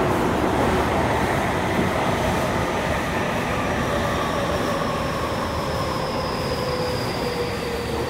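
Tokyu 5080 series commuter train heard from inside the car, slowing down: the traction motor whine falls steadily in pitch over the rumble of the wheels and car body as it brakes for the next station.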